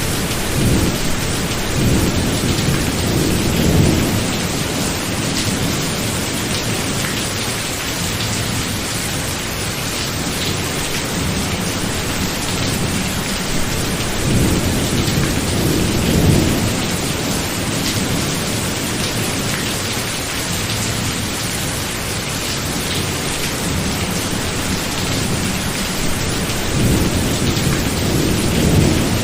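Thunderstorm: steady rain with rolling thunder that swells and fades three times, about a second in, around the middle, and near the end.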